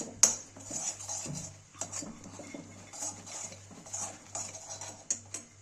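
Spoon clinking and scraping against a dish while powdered cardamom is added to a jaggery mixture, with one sharp clink just after the start and then lighter, irregular taps and scrapes.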